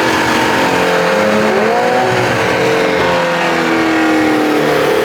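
Performance car engines revving hard, several engine notes overlapping, climbing in pitch about a second and a half in and then slowly falling.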